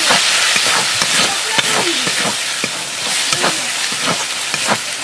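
Onions and spice paste sizzling in hot oil in an iron kadai, with a steady frying hiss. A steel spatula scrapes the pan again and again as the masala is stirred.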